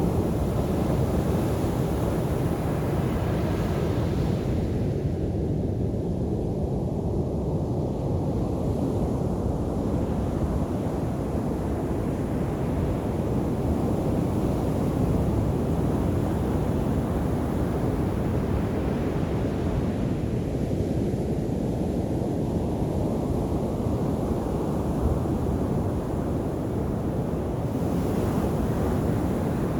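East Sea surf breaking and washing up the beach, a steady low rush with the hiss of breaking waves swelling and fading in slow surges: one at the start, a long one through the middle, another near the end.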